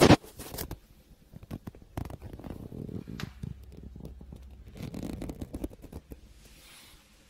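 A sharp knock right at the start, then scraping and rustling with small clicks. It is handling noise as the camera is pushed in among the pipes and meter inside a kitchen cupboard.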